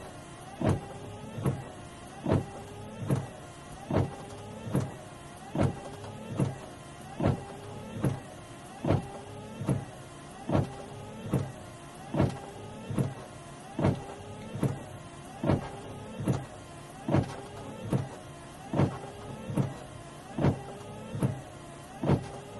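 Car windscreen wipers sweeping back and forth, heard from inside the car. There is a thump at the end of each stroke, about one every 0.8 seconds, with a whine that rises and falls in pitch between them.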